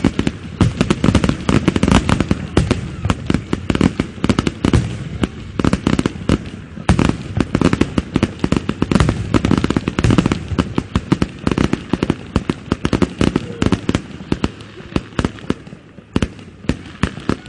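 Fireworks display going off in a dense barrage: many bangs and crackles a second, one on top of another, thinning a little and briefly dipping near the end.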